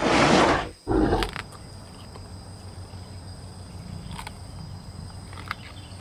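Allosaurus roar sound effect from the Jurassic World Evolution game: a loud roar lasting under a second, then a shorter second call about a second in. After that a low, steady background ambience with a few faint clicks.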